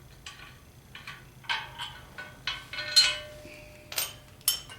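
Steel bolts and metal parts clinking and tapping against each other in a string of irregular sharp clinks. One clink about three seconds in rings on briefly.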